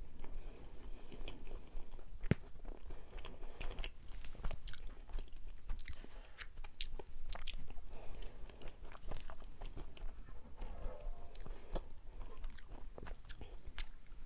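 Close-miked chewing and biting of a soft steamed mugwort rice cake (ssuk-seolgi), with many short, sharp, wet mouth clicks.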